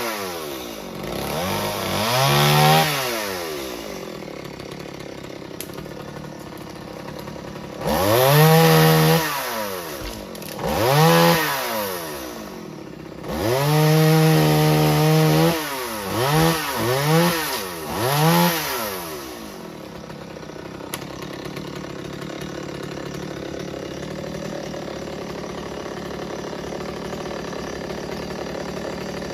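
Two-stroke chainsaw revved up and let fall back again and again, some revs held for a second or two and a quick run of three short blips near the end. After that it settles to a steady idle.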